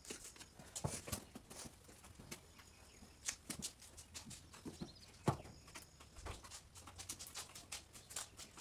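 A horse's hooves being picked out: faint, scattered scrapes and knocks of the hoof pick and of hooves set down on the barn floor, the loudest knock about five seconds in.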